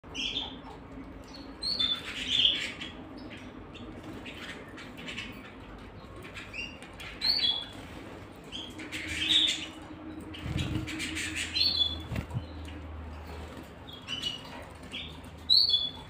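Domestic canaries in a wire cage giving short chirping calls every second or two, mixed with the flutter of wings as the birds hop between perches.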